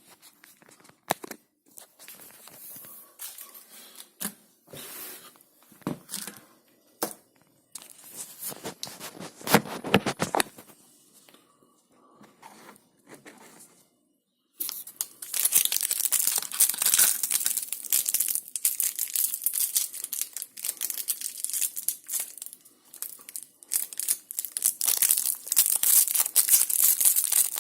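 A dishwasher tablet's wrapper being handled and torn open: scattered clicks and short rustles at first, then from about halfway a continuous crinkling and tearing.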